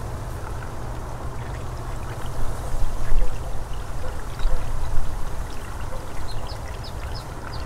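Pentair CVA-24 valve actuator's motor turning the pool/spa valve back the other way, reversing now that its bad left microswitch has been replaced, with water rushing through the pool plumbing as the valve shifts. The rushing swells louder for a few seconds in the middle.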